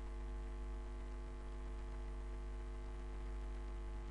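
Steady electrical mains hum: a low, unchanging hum with a thin buzz of evenly spaced overtones above it.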